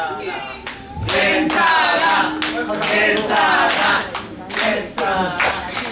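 A crowd of voices calling out and cheering together, with clapping, rising about a second in and carrying on until near the end.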